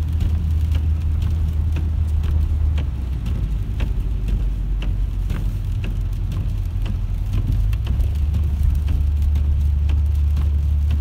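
Steady low rumble of a car driving on a wet, slushy road, heard from inside the cabin, with scattered irregular ticks of rain drops striking the car.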